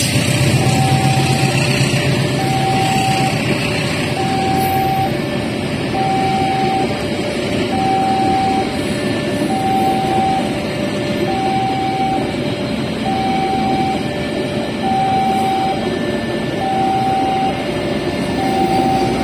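Railway level-crossing warning alarm repeating a high-low two-tone chime, about once every 1.7 seconds, over the steady rumble of passenger coaches rolling past on the rails. A low hum fades out in the first few seconds.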